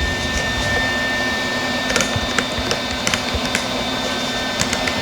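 Steady hum of running shop machinery with a thin high whine, and a few light clicks and taps from sheet metal being handled.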